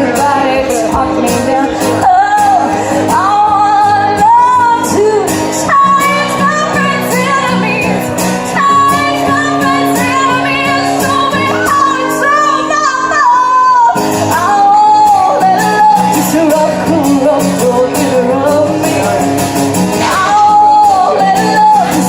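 Live band music with a female singer holding long, sliding notes over steady instrumental accompaniment.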